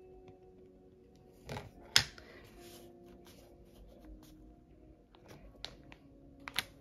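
Soft background music, with a few light taps and clicks from a clear acrylic stamp being inked on an ink pad and pressed onto a page. The sharpest click comes about two seconds in, and two more follow near the end.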